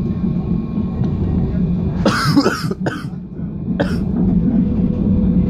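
Interior running noise of an Alstom RegioCitadis tram: a steady low rumble with a faint steady whine. A person coughs loudly about two seconds in, then twice more briefly.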